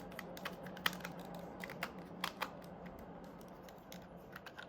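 Light, irregular clicks and taps of small plastic parts being handled and pressed into place on a disposable film camera, over a faint steady hum.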